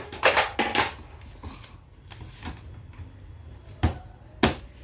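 Hard plastic parts of a kids' chair knocking and clicking as they are fitted together: a few knocks in the first second, then two more near the end.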